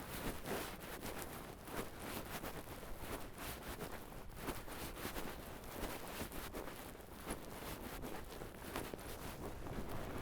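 Footsteps crunching through snow and ice, an irregular series of steps.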